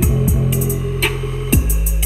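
Music with a heavy bass line and a drum beat with repeated kick-drum hits and crisp hi-hat ticks, played loud through a 6-inch Polytron subwoofer and soundbar on a ZK-TB21 2.1 amplifier for a bass test; a deep, sustained bass note comes in about three quarters of the way through.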